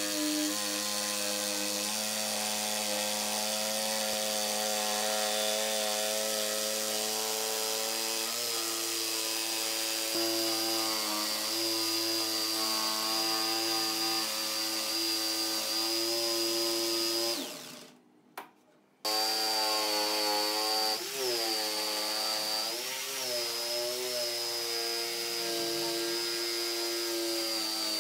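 Makita jigsaw cutting a curve through a thick solid-wood tabletop, its motor whining steadily as the blade saws. About seventeen seconds in it winds down and stops for a second or so, then runs again, its pitch dipping and wavering as the blade bites into the wood.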